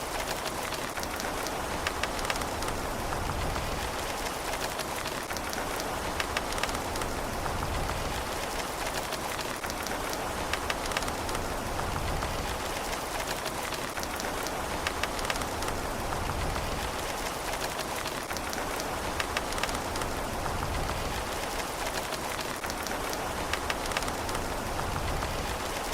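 Steady rain falling, a continuous hiss with many individual drops pattering and ticking on a surface.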